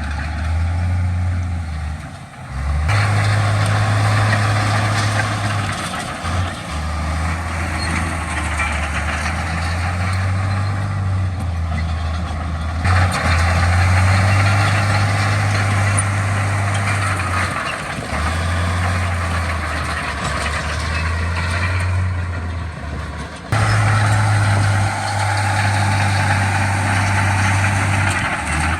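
Heavy diesel earthmoving machinery running: a steady low engine drone with noisy mechanical sound over it. The sound shifts abruptly about three, thirteen and twenty-three seconds in.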